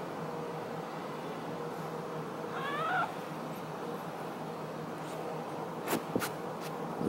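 A cat meows once, a short call that rises and falls about three seconds in. A few sharp clicks come near the end, over a steady low hum.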